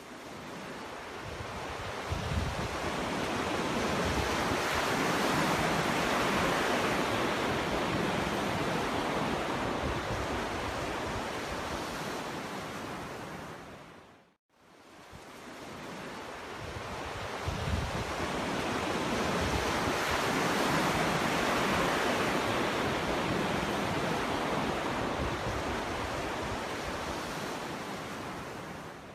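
Sea waves breaking and washing up a beach: two long surges, each building over a few seconds and slowly fading, with a brief near-silent gap between them about halfway.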